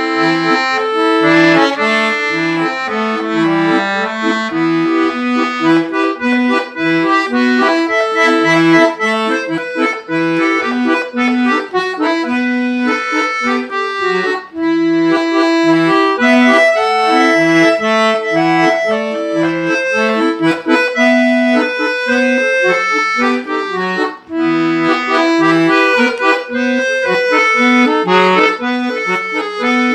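Piano accordion played solo: a melody on the right-hand keyboard over a steady, repeating left-hand bass-and-chord accompaniment, with brief breaks between phrases about halfway through and near the end.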